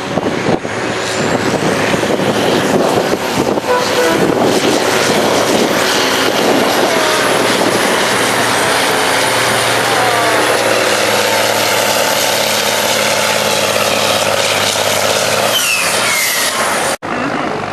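Cabover semi truck's diesel engine running hard at high revs under load while pulling a weight-transfer sled, with a faint high whistle that rises and falls above it. The sound drops out abruptly near the end and comes back quieter.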